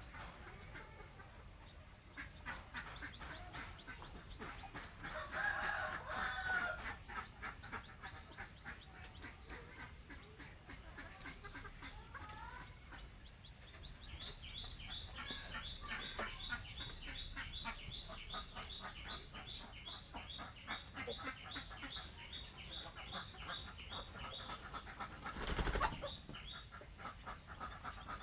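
Domestic chickens clucking and calling, with a louder drawn-out call about five to six seconds in. Through the second half a rapid, even run of high chirps goes on for about ten seconds, and a brief loud thump comes near the end.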